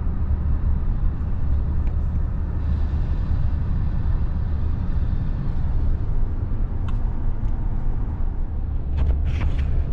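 Steady low road and engine rumble of a moving car, heard from inside the cabin. A few short clicks come near the end.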